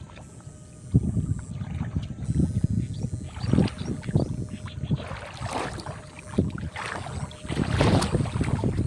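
Shallow water sloshing and splashing in irregular swishes as the fisher wades and works the electric-fishing gear through it, with a sharp knock about a second in and the loudest splashing near the end.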